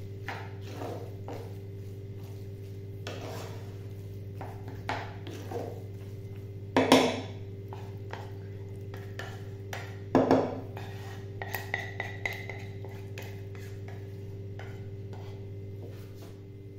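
Spoon scraping and stirring thick béchamel and chicken filling in a nonstick frying pan: soft scrapes and clicks, with two louder knocks about seven and ten seconds in, over a steady low hum.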